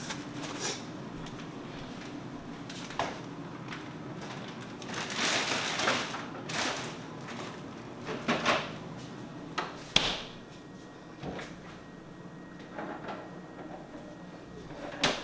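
Groceries being put away: food packages handled and rustled, and the refrigerator's freezer and fridge doors opening and closing, with scattered knocks. The sharpest knock comes about ten seconds in.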